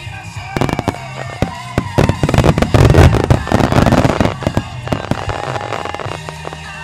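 Starmine fireworks barrage: a rapid, dense run of shell bursts that builds to its loudest about two to four seconds in, then thins out, over music playing along with the display.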